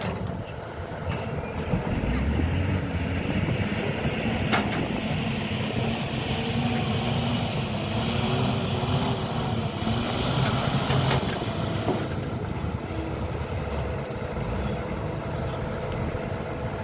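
Hydraulic excavator's diesel engine running under work, its pitch rising and falling, with a couple of sharp knocks.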